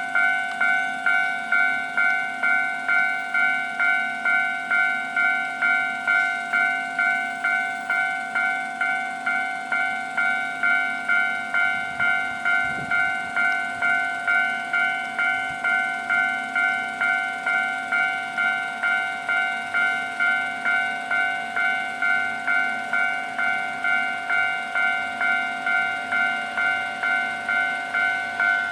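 Japanese railway level crossing alarm ringing steadily, about two fading bell-like strikes a second: the crossing is closed and a train is approaching.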